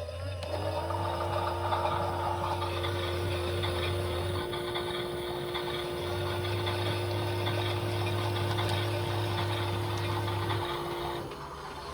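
Toy washing machines running. About half a second in, a small motor's hum rises briefly to a steady pitch, holds, and stops shortly before the end, over a lower hum.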